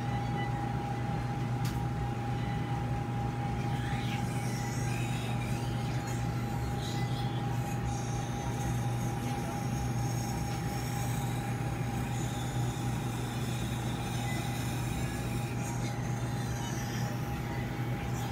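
Operating-room equipment running: a steady low hum with a constant high tone over it, unchanging throughout.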